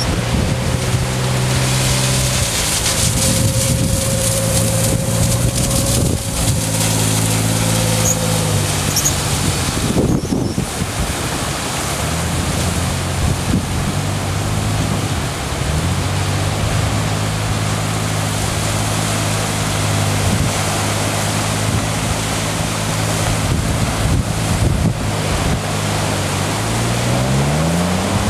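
Wind on the microphone and surf washing in, over the steady drone of a Suzuki Grand Vitara's engine driving through shallow surf on wet sand. The engine pitch holds for stretches, then shifts, with a quick rev up and back down near the end.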